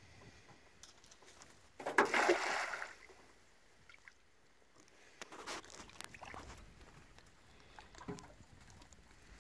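A cast net thrown from a small boat hits the water about two seconds in with a brief, spreading splash, the loudest sound here. Fainter water sounds follow as the net sinks and its line is hauled back.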